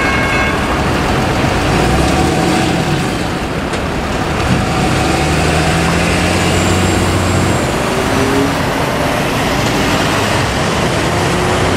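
Road traffic moving off over the railroad crossing: pickup trucks and cars driving past, with one vehicle's engine hum strongest in the middle as a truck towing a trailer goes by. The crossing's electronic bell cuts off about half a second in.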